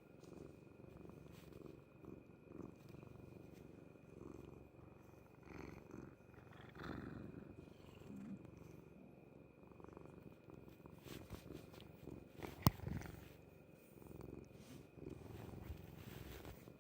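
Orange tabby cat purring steadily, heard close up, with an occasional stomach gurgle. A single sharp click comes about three-quarters of the way through.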